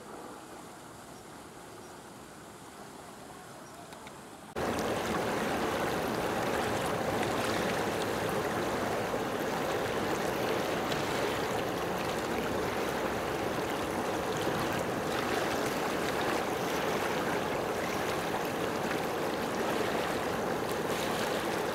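Faint background ambience, then, about four and a half seconds in, a sudden cut to a much louder, steady rush of water washing against a shore.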